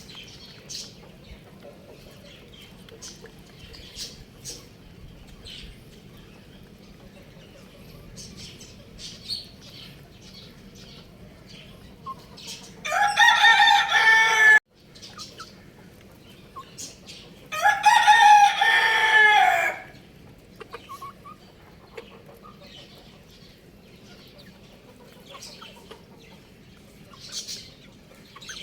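A young rooster crowing twice near the middle; the first crow cuts off suddenly. Short, faint chick peeps and clucks come on and off throughout.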